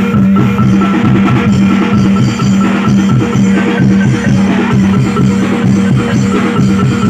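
Live reog and jaranan ensemble music: drums and percussion play a quick, even beat over a steady held tone.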